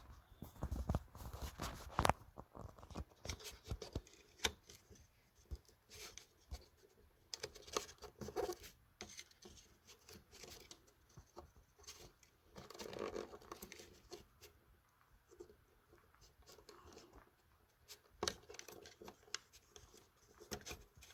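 Faint, irregular clicks, taps and scratching of fingers and small parts being handled inside a small transistor radio as a wire is pushed down between its components.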